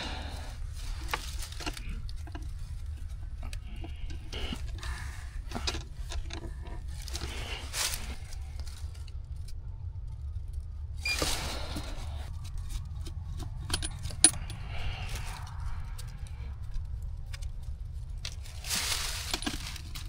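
Refrigerant hose fittings on a vacuum pump and manifold gauge being handled and hand-tightened: scattered metallic clicks, clinks and rattles, over a steady low rumble.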